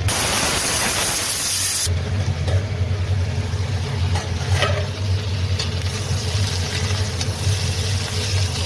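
A pressure cooker hisses loudly on a gas stove for about two seconds, then sliced pointed gourd (potol) sizzles as it fries in a pan. A steady low electric hum runs underneath.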